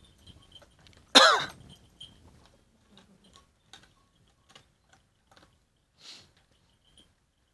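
Dogs eating from bowls, with faint scattered clicks of chewing and lapping. There is one loud, short cough about a second in.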